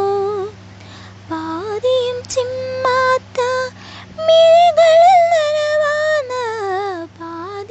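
A woman singing a Malayalam film melody unaccompanied, in long held notes that waver in pitch and break into short phrases.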